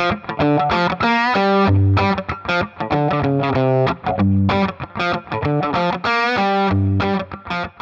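Outro music: distorted electric guitar playing a rhythmic riff, with sliding notes.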